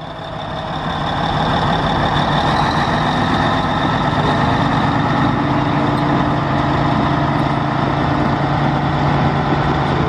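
Caterpillar D9L bulldozer's diesel engine working hard under load as it tows a stuck Jeep out of a mud pit. The engine builds over the first second or so, then holds a steady drone.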